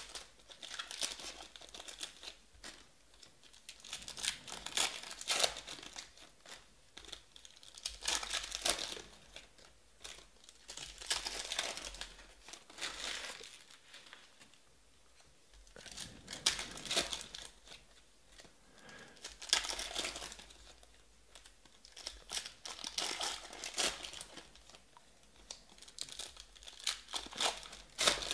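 Foil wrappers of Panini Select basketball card packs crinkling and tearing as the packs are ripped open by hand. The sound comes in repeated bursts every few seconds, with brief quieter gaps between packs.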